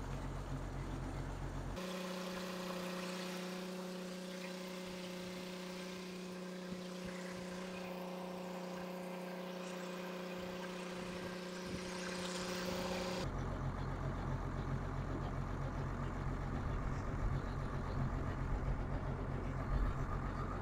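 Engine of a tube-well boring rig running steadily while the drill pipe is worked down into the borehole. From about 2 s to 13 s the low engine note gives way to a steady, higher mechanical hum, then the low note returns.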